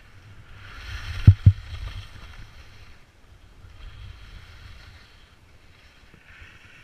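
Ski edges scraping across hard-packed snow in three stretches of turning, over a low rumble of wind on the microphone. Two loud, sharp thumps come close together about a second in.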